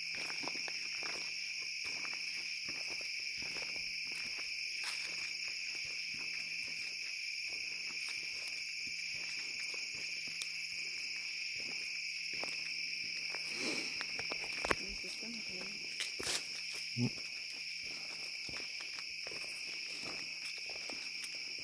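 Steady chorus of night insects, with two high, even drones. Footsteps crunch through leaf litter and brush, with a few louder brief sounds about two-thirds of the way in.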